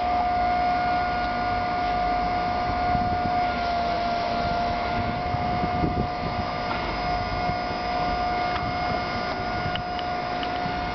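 Boat-mounted crane's motor running a steady, high whine over a low rumble while hoisting a tuna out of the water; the pitch sags slightly about four seconds in, as if under load.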